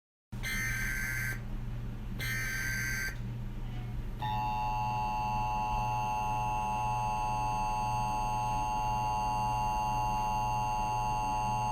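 Emergency Alert System broadcast alert tones. Two short bursts of data tones come about a second apart, then the steady two-tone attention signal sounds for about eight seconds and stops suddenly, over a low steady hum.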